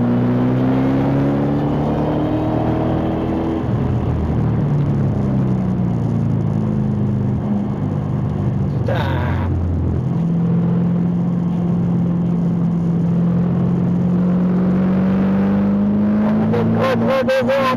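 Car engine heard from onboard during a track lap. It climbs in pitch under acceleration for the first few seconds, drops back, then holds a lower, steady note that slowly rises again before breaking off near the end. A brief click comes about halfway through.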